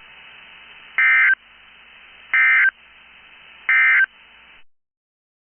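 Emergency Alert System SAME End of Message data bursts sent over NOAA Weather Radio: three short bursts of digital data tones, each about a third of a second long, spaced a little over a second apart, marking the end of the alert. Faint receiver hiss sits between the bursts and cuts off after the third.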